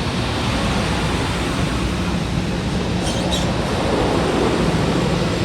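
LIRR M3 electric multiple-unit train rolling slowly past, a steady run of wheel and motor noise with a low hum. A brief high-pitched squeal comes about three seconds in.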